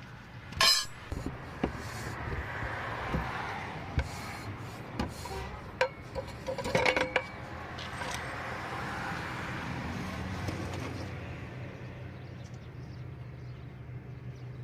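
Metal parts and tools clinking and knocking in an irregular series of sharp strikes, busiest around the middle, over a steady low hum.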